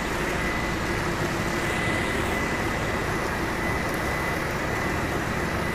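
Pressure-washing equipment running steadily: an even machine drone with a thin, constant high whine.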